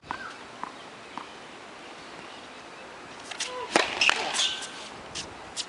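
Tennis ball struck by rackets and bouncing on a hard court: a quick cluster of sharp pops starting about three seconds in and two more near the end, with short squeaks of shoes on the court surface.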